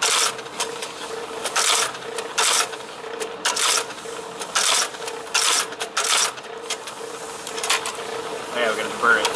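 Graphotype embossing machine running: a steady motor hum from the spinning type wheel, with irregular sharp clacks roughly once a second as keys are struck and characters are stamped into a metal address plate.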